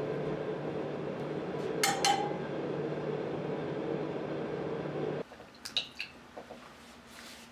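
A steady machine hum with two light metallic clinks about two seconds in, cutting off suddenly about five seconds in; only faint small clicks follow.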